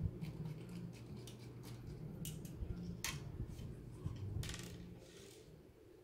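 Scattered light clicks and a short scrape of small metal parts and a screwdriver as a graphics card's cooler is taken apart, with the sharpest click about three seconds in. A low steady hum runs underneath.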